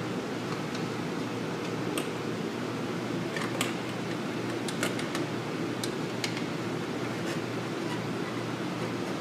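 Steady mechanical hum of room machinery, with a scattered series of light metallic clicks as parts of an oil burner's nozzle and electrode assembly are handled.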